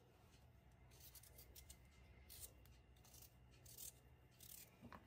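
Kitchen knife cutting raw carrot into sticks on a wooden cutting board: a string of faint, crisp cuts.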